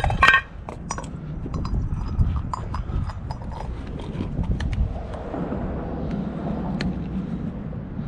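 Scrap metal pieces clanking and rattling as they are handled and sorted in a dumpster. A loud ringing clank comes at the start, then lighter irregular knocks and rattles, some with a brief metallic ring.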